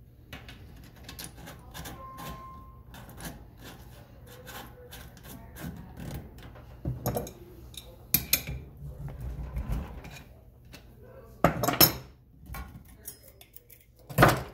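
Metal hand tools clinking and scraping on a Shimano cassette lock ring as it is threaded on and tightened with a lockring tool, an adjustable wrench and a chain whip. There are light clicks throughout, with a few sharper metallic clanks in the second half.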